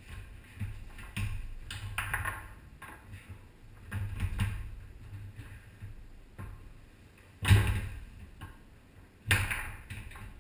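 Foosball play on a Tornado table: the ball clacking against the players' men and the table walls in a string of sharp knocks, with two much louder bangs near the end.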